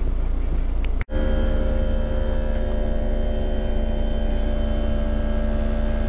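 Coleman HC20 heat pump outdoor unit running in heating mode shortly after start-up: a steady hum from the compressor and fan. The sound drops out for an instant about a second in, then the hum carries on with several steady tones.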